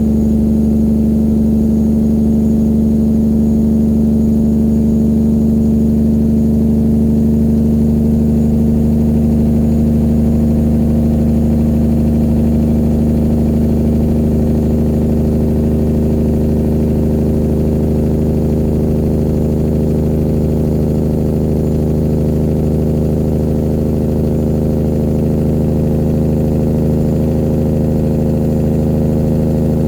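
Straight-piped diesel engine of a 1999 Peterbilt 379 semi truck running steadily, its pitch creeping slightly up over the stretch.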